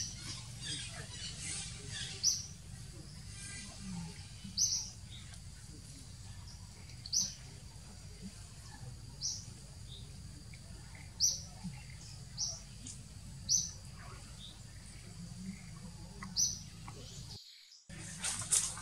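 A bird chirping: short high chirps, one about every one to two seconds, over a steady low outdoor background. The sound drops out briefly near the end.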